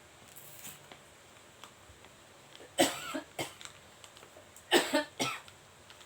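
Two short fits of coughing, each of two or three coughs, about two seconds apart, from a person who is ill with a cough.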